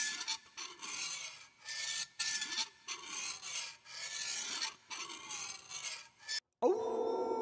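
Harsh rasping scrapes repeated in about eight strokes of under a second each, a horror sound effect. Near the end they cut off and a steady ringing tone begins.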